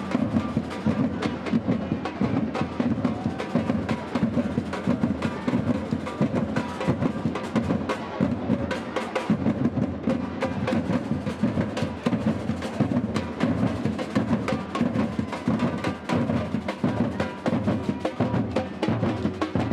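Brazilian batucada percussion ensemble playing a dense, steady samba groove of many drums, with sharp wooden or bell-like accents over the low drums.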